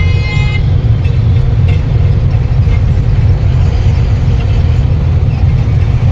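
Truck on the move: a loud, steady low rumble of engine and road noise. A high tone with overtones stops about half a second in.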